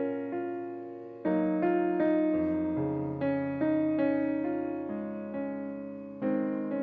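Background piano music: a gentle keyboard melody over held chords, each group of notes struck and slowly fading.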